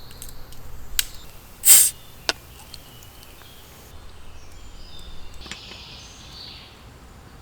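Bottle of dark beer being opened: a click, then a short, loud hiss of escaping gas about two seconds in, followed by a small click. A softer hiss follows a few seconds later.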